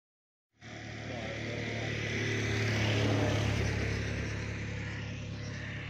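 A steady engine drone with a low hum, starting about half a second in. It swells to its loudest around three seconds and then eases off, like an engine passing by.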